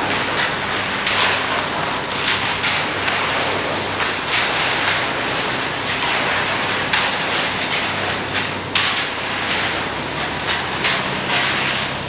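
Heavy machinery running steadily under a constant rushing hiss, with irregular clatter and knocks.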